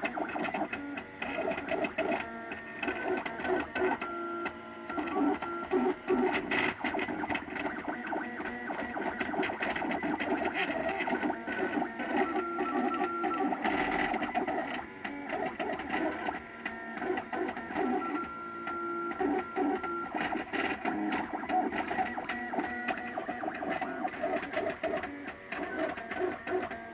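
MakerBot Thing-O-Matic 3D printer running mid-print, its stepper motors whining in tones that change pitch every second or so as the print head moves about, laying down plastic layer by layer.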